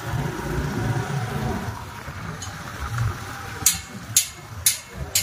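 Motorcycle engine running at low speed, then a run of sharp knocks about two a second in the last second and a half, louder than the engine.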